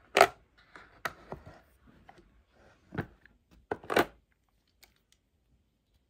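Clicks and knocks of a hydraulic crimping tool and its steel crimping dies being handled in a hard plastic carrying case. The loudest knocks come about a quarter second in and again around three and four seconds in.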